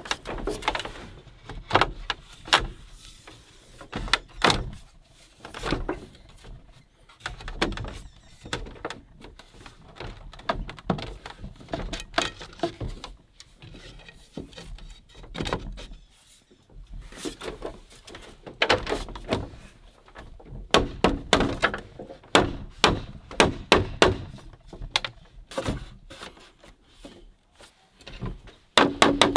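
Green bamboo poles knocking and clattering as a chair frame is put together, rails being worked into holes cut in the bamboo posts. The knocks come thick and fast in the second half.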